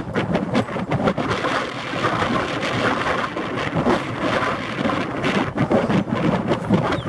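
Wind blowing across the microphone: a loud, uneven rushing noise that swells and dips.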